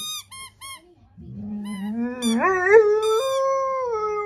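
Squeaky sprout toy squeaking three times in quick succession, then a black Labrador howling: one long howl that starts low, rises and holds, with further squeaks of the toy over it.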